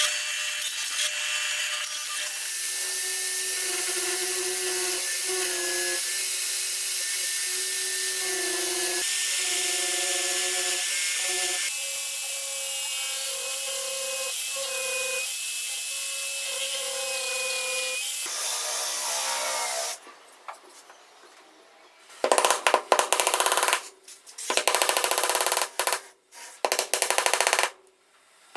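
A power tool working wood. For about twenty seconds it runs steadily, with a motor whine that shifts pitch every few seconds. After a short pause it cuts three times in short, loud bursts, each stopping abruptly.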